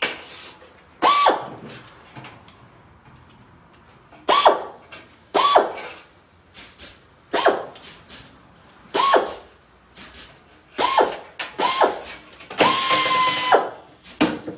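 Corded electric metal cutter snipping through chicken wire in a series of short bursts, its motor whirring briefly with each cut. A longer run of about a second comes near the end.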